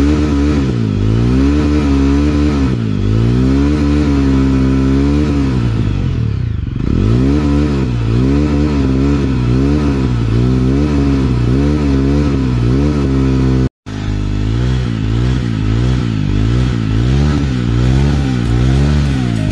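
Jawa 42 motorcycle's single-cylinder engine running, its pitch rising and falling about once a second, with a deeper dip in revs about six and a half seconds in. The sound cuts out for an instant near the end of the middle.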